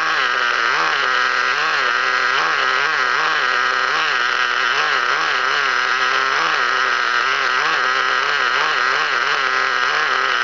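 Traxxas TRX 3.3 nitro engine idling, its pitch wavering up and down in a steady rhythm about one and a half times a second.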